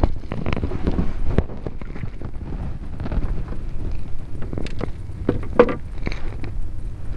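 Wind buffeting the microphone, a steady low rumble, with a few short knocks and rustles scattered through it.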